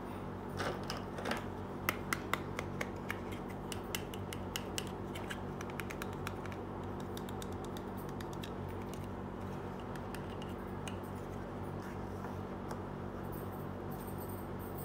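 Small plastic toy pieces clicking and tapping against each other as they are handled and set down: a quick run of light clicks in the first five seconds, then only a few faint ones, over a steady low hum.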